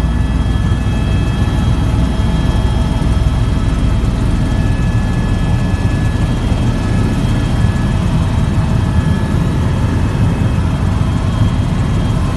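Helicopter in flight heard from inside the cabin: a steady, loud rumble of rotor and turbine engine with faint, steady high-pitched whines over it.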